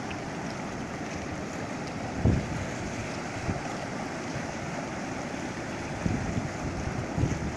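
Muddy floodwater rushing steadily down a concrete-lined channel. Wind buffets the microphone in a few low thumps, the strongest about two seconds in and more near the end.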